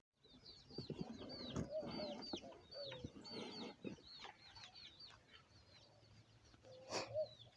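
Chickens clucking faintly, with a long run of quick, high, downward-sliding chirps, two or three a second.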